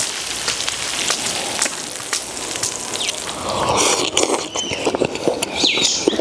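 Stir-fry sizzling and crackling in a hot wok for about three seconds. Then close-up eating noises take over: chewing, with light clicks of chopsticks on a rice bowl.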